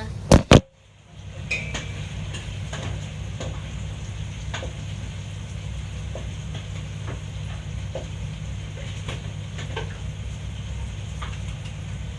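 Two loud knocks about half a second in, then a spoon scraping and tapping against a cooking pot every second or so as the biryani masala is stirred, over a steady low hum.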